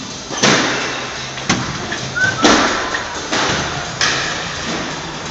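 Squash balls struck with rackets and smacking into the court walls: about five sharp thuds roughly a second apart, echoing briefly in the court.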